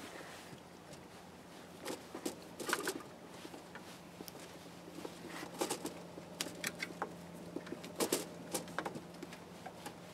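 Scattered light clicks and taps of small metal parts and hand tools being handled as a thermostat housing is fitted and bolted down, over a faint steady hum.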